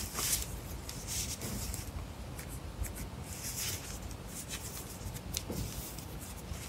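Soft, intermittent rustling and scratching of chunky yarn drawn through dry hands and over wooden knitting needles as stitches are worked.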